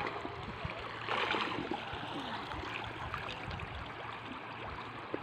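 Shallow water sloshing and lapping as people wade through it and work a brush-filled fish net, with a louder splash about a second in.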